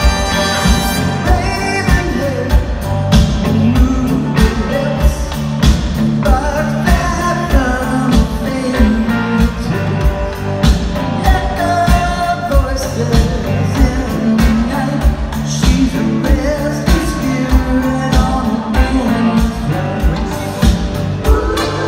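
A live rock band performing, with electric guitars, drums and congas over a steady beat and a lead vocalist singing the melody, heard from the audience in a large hall.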